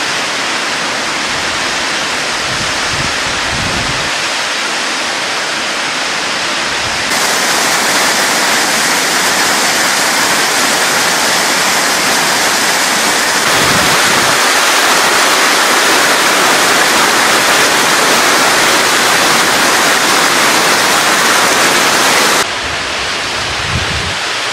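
Waterfall: a loud, steady rush of falling water. It grows louder and brighter about seven seconds in and again around thirteen seconds, then drops back shortly before the end.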